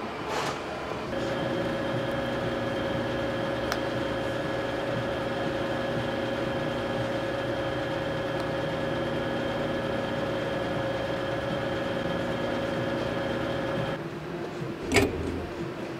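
Petrol pump dispenser humming steadily as it pumps fuel into a car. The hum starts about a second in and stops shortly before the end, followed by a single clunk.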